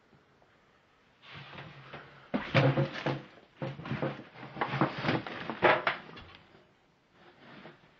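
Irregular knocks, clatters and creaks of household junk and wood shifting as someone pushes and steps through a cluttered room, starting about a second in and dying away near the end.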